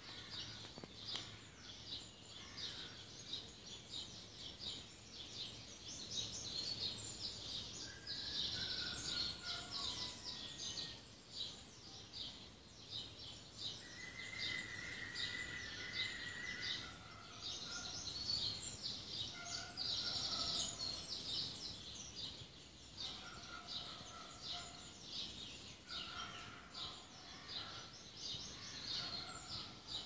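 Morning birdsong from many small birds chirping rapidly and continuously. From about eight seconds in, clear whistled notes from another bird come in and out over the chirping.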